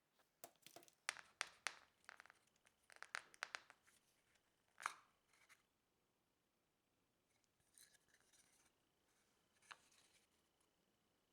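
Light, irregular clicks and taps of small objects being handled, coming quickly in the first few seconds, with one sharper tap a little before the middle and fainter rustles after it.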